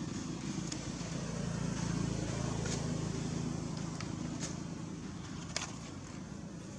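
A steady low rumble that swells about two seconds in and slowly fades, with a few sharp clicks scattered through it.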